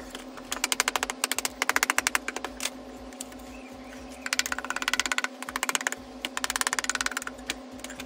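Background music: a steady held tone with four bursts of rapid, even ticking.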